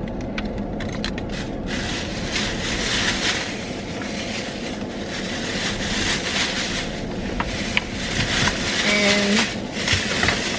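Plastic shopping bag crinkling and rustling as it is handled, with fabric rustling, in uneven swells.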